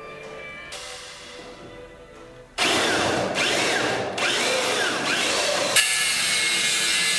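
A power tool starts running loudly and suddenly about two and a half seconds in, a dense grinding noise that shifts in pitch and changes about three seconds later. Quiet background music comes before it.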